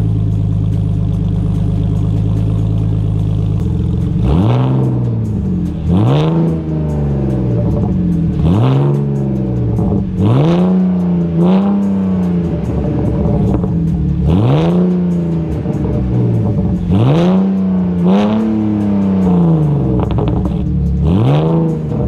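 BMW Z4 engine breathing through a straight exhaust with catless headers and the rear silencer deleted: steady idle for a few seconds, then blipped about ten times, each rev rising sharply and falling back to idle.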